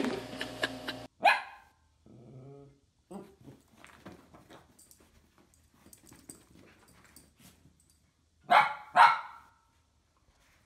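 A dog barking: one short bark just after a second in, then two loud barks in quick succession near the end, with quieter scattered sounds between.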